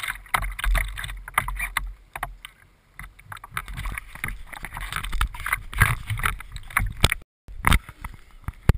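Water splashing and lapping against the hull of a radio-controlled boat drifting with its electric motor stopped, in short irregular splashes.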